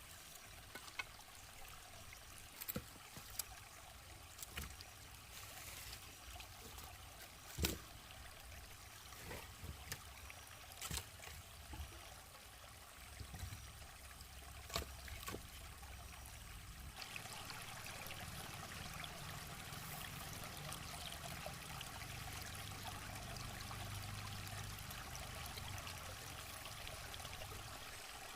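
Water trickling, with scattered sharp clicks and knocks over the first half. About seventeen seconds in the sound changes abruptly to a steadier, fuller run of flowing water.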